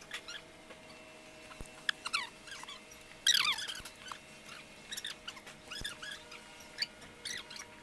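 Cylinder head bolts on a Weichai WD615 diesel engine squeaking as they are tightened with a long bar: short, high, falling squeaks in clusters of several, loudest a little over three seconds in.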